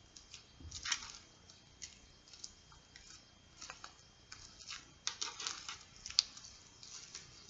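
Fishbowl slime with beads in it being squeezed and worked by hand, giving faint irregular squishes and bead crackles that bunch up about a second in and again around five to six seconds in.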